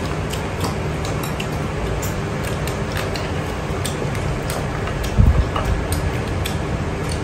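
Chopsticks clicking against porcelain rice bowls during a meal: scattered light ticks over a steady background hiss, with one low thump a little past halfway.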